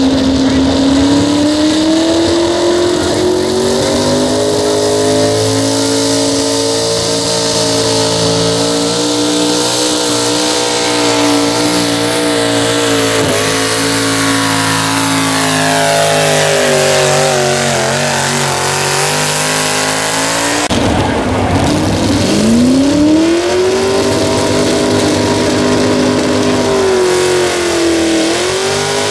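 Pro stock two-wheel-drive mini truck engines at full throttle pulling a weight sled. The first truck's engine climbs to high revs and holds there under load, then its pitch sags and falls away. After a sudden break, a second truck's engine sweeps back up to high revs, dips briefly near the end and rises again.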